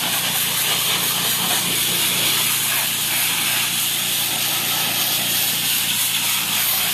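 Pressure washer's high-pressure water jet spraying a step in a steady, loud hiss, with the washer's engine running as a steady low hum underneath.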